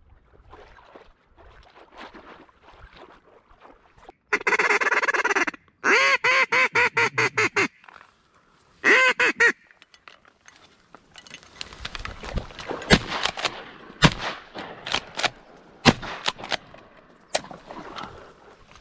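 A hand-blown duck call sounded close by: one long quack, then about ten short quacks in quick succession, and a brief final note. From about eleven seconds in, reed stalks rustle and crack with sharp snaps as they are pushed aside.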